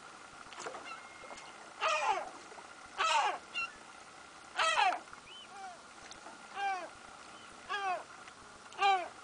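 A seabird calling repeatedly, about once a second: short calls that each drop in pitch, the first three louder and rougher, the later ones thinner and more evenly spaced.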